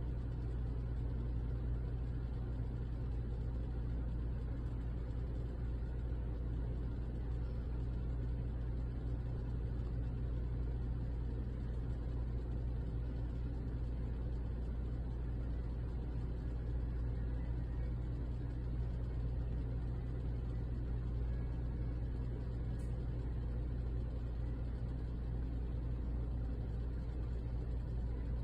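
A steady low hum and rumble with no voices, unchanging throughout.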